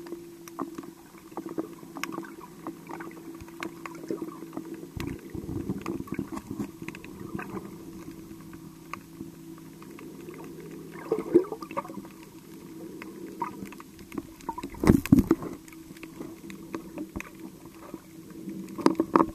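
Underwater sound picked up by a snorkeller's camera: a steady low hum under muffled water movement, with scattered sharp clicks and crackles. A louder rush of water noise comes about fifteen seconds in, with shorter ones about eleven seconds in and near the end.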